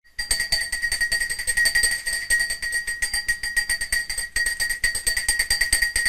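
Small Swiss-style dog bell, a stamped-metal cowbell-type bell, shaken rapidly so its clapper clangs in a fast continuous jangle with a high, steady ring. There is a brief break about four seconds in.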